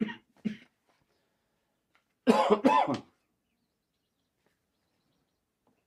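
A man coughing: two short coughs at the start, then three loud coughs in quick succession a little after two seconds in.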